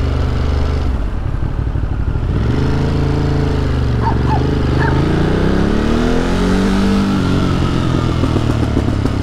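Ducati Monster's 937 cc V-twin engine, heard from the rider's seat, running steadily and then accelerating hard from about two and a half seconds in, its pitch climbing and dropping at upshifts around four and seven seconds in. It is a little loud.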